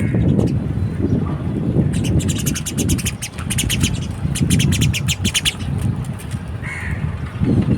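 Small birds chirping at a feeder: a fast run of high, rapid chirps lasting about three and a half seconds, starting about two seconds in, then a single lower call near the end, all over a steady low rumble.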